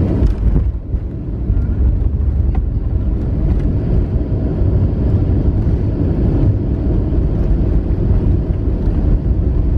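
Boeing 737-400's CFM56-3 engines running in reverse thrust during the landing roll, heard inside the cabin as a loud, steady low rumble together with the rumble of the wheels on the runway. The sound dips briefly about a second in, then holds steady.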